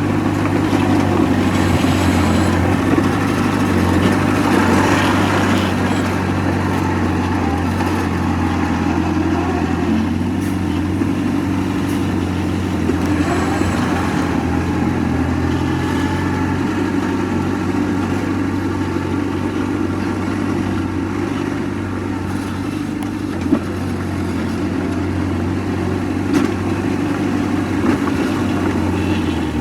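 Heavy diesel engine of earthmoving machinery running steadily, with a few brief knocks.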